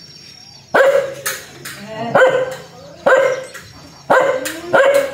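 Fierce dog barking: a run of about six sharp barks, roughly one a second.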